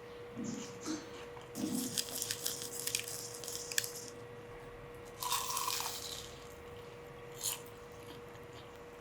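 Biting into and chewing a crisp deep-fried sesame ball, with a crackly crunch for a couple of seconds, a second crunchy bite about five seconds in, and a short click near the end.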